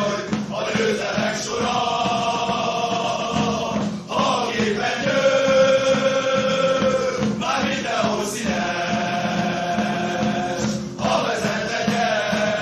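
A chorus of voices sings a chant-like song in long held phrases of about three to four seconds each, over a steady beat.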